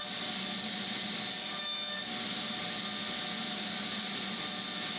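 Table saw running steadily with a single standard blade cutting a shallow, non-through pass across the end of a pine board: one of several side-by-side passes that nibble out a rabbet.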